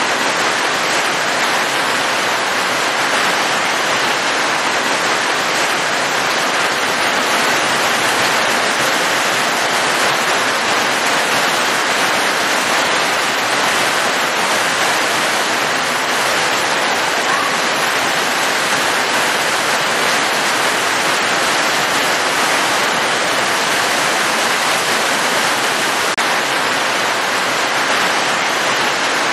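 Steady, heavy rain: a dense, even hiss without single drops standing out, holding the same level throughout.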